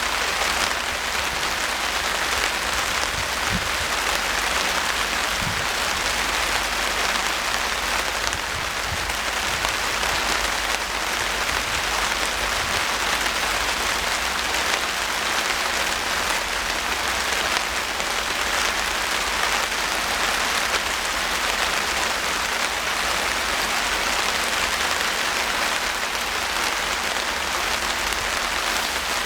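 Steady rain falling, an even rushing hiss that keeps up without a break.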